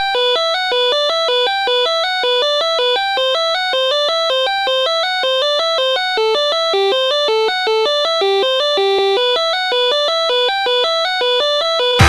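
Song intro: a lone electronic melody line of quick, evenly spaced notes, with no drums or other instruments under it.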